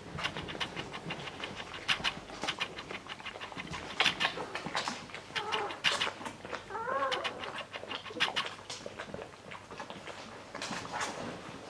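Nursing English Springer Spaniel puppies suckling, with many small wet smacks and clicks, and a puppy's short squeak about seven seconds in.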